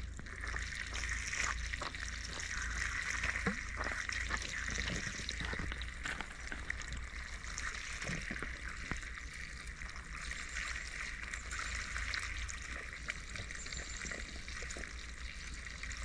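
Muddy water pouring steadily from the open end of a black plastic water pipe onto leaves and ground, with small splashes. The line is being flushed: it runs muddy at first and is left running until the water clears.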